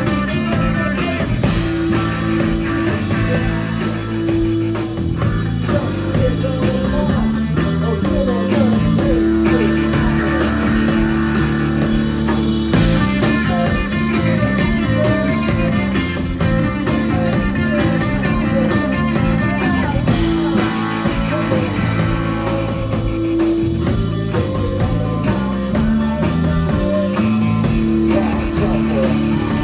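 Live rock band playing loud: two electric guitars and a drum kit working through a repeating riff, with a man singing at times.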